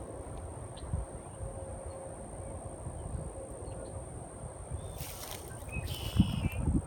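Steady high-pitched drone of insects, over a low uneven rumble, with a couple of brief rustling sounds about five and six seconds in.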